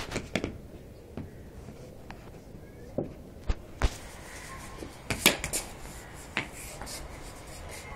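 Scattered sharp knocks and taps at irregular intervals over a faint hiss, the loudest a pair about five seconds in.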